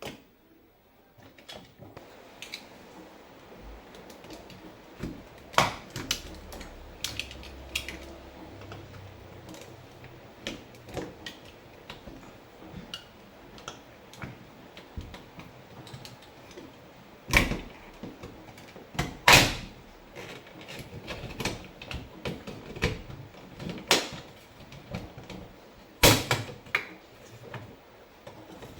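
Prying tool working at the plastic trim of a refrigerator door handle to get it open: irregular clicks, scrapes and small knocks, with a few sharper, louder knocks scattered through.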